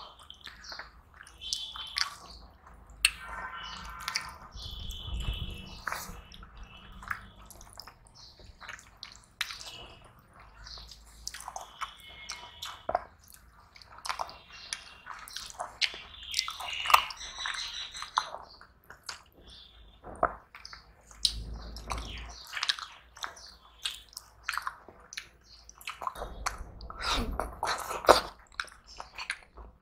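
Close-up eating sounds of people eating rice and curry with their hands: irregular wet squishing and smacking as fingers mix and scoop the food, with chewing and sharp lip-smacking clicks.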